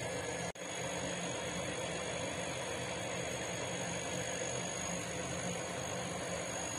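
Steady low mechanical hum with a faint hiss, as from a motor or fan running, briefly cutting out about half a second in.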